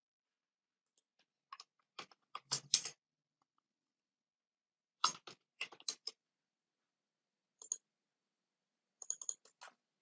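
Computer keyboard keys clicking in short bursts of typing, with silent pauses between. There is a cluster of keystrokes about two to three seconds in, another around five to six seconds, a single click near eight seconds, and a last quick burst near the end as a command is finished and entered.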